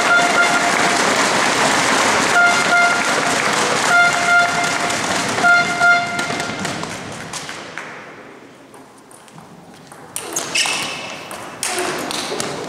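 Spectators' loud din with a horn tooting briefly about four times, dying away after about seven seconds. From about ten seconds in, a table tennis rally: sharp clicks of the ball off the paddles and the table.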